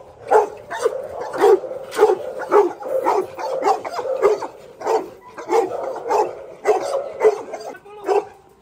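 Dog barking over and over, about two barks a second.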